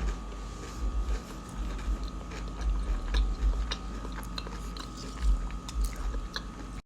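Close-miked chewing of a fried prosciutto-wrapped mozzarella stick, with many small wet mouth clicks and a faint steady hum underneath.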